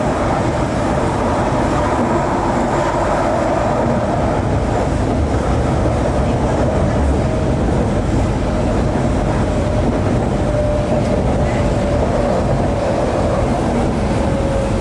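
Shanghai Metro Line 11 train running at speed, heard from inside the car: a steady rumble of wheels on rail with a faint steady whine.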